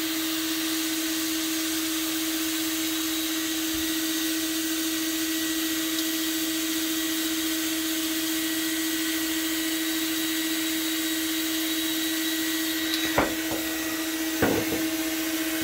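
Shop vacuum running steadily with a constant whine and hiss. Two short knocks come near the end.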